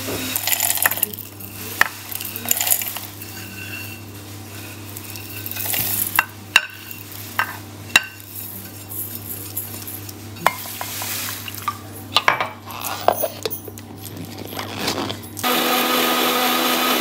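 Roasted peanuts, cashews and seeds are poured and tapped off a plate into a steel mixer-grinder jar, clicking and rattling against the metal. About a second and a half before the end, the electric mixer grinder starts and runs steadily, grinding the roasted masala.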